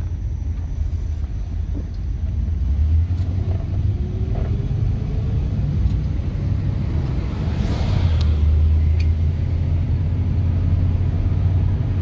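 1963 Pontiac Star Chief's 389 V8 with Powerglide automatic, heard from inside the cabin while driving: a steady low engine and road rumble that grows louder from about eight seconds in.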